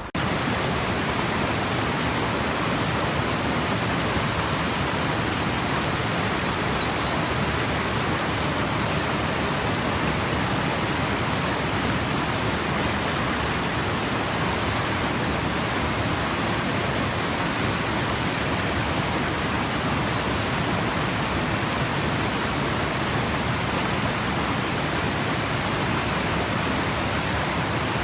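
Rushing stream water, a loud steady rush of whitewater, with two faint short high chirps.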